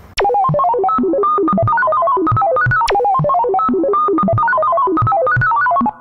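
Music: a fast electronic keyboard tune of quick running notes, with a falling swoosh at its start and again about three seconds in. It stops abruptly just before the end.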